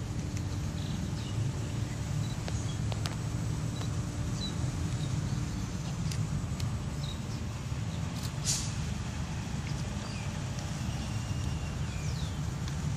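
Open-air ambience: a steady low rumble, like wind buffeting the microphone, with faint scattered bird chirps and a brief hiss about eight and a half seconds in.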